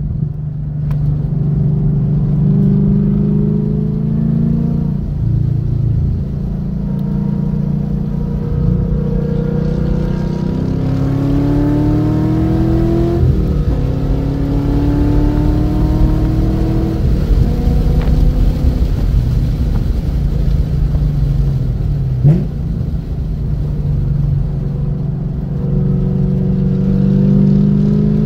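2016 Chevrolet Camaro SS's 6.2-litre LT1 V8, with 1 7/8-inch Stainless Works headers and a full exhaust, heard from inside the cabin under hard track driving. The note climbs in pitch as it pulls, drops back at an upshift and when lifting for corners, then climbs again several times.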